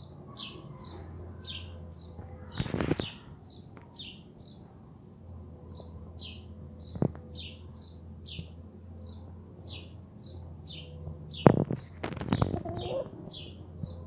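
A small bird chirping steadily, two or three short high notes a second, each falling in pitch, over a low steady hum. A few sharp knocks break in, the loudest about eleven and a half seconds in.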